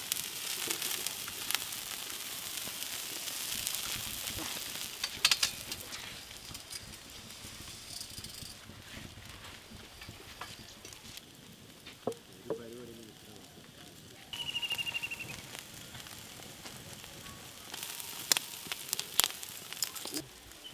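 Charcoal fire sizzling and crackling under a whole beef carcass roasting on a spit, with sharp pops now and then. A short buzzing trill comes in about two-thirds of the way through.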